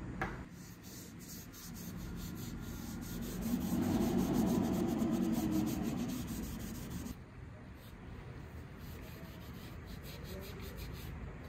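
Fine sandpaper rubbed back and forth by hand over a Damascus steel knife blade, loudest in the middle, after a short knock at the start.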